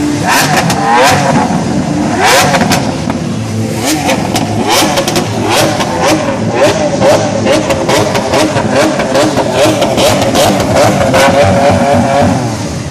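Lamborghini Aventador LP700-4's V12 engine being revved with quick throttle blips, the pitch rising sharply each time. In the second half the revs are held high and steady for several seconds, then drop back near the end.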